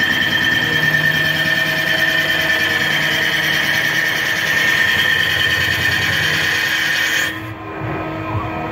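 Mazak CNC lathe turning a crankshaft, the tool cutting one of its journals: a steady machine whine with a strong high steady tone and a hiss of cutting. About seven seconds in, the high hiss drops out and the sound briefly gets quieter, leaving the lower running sound.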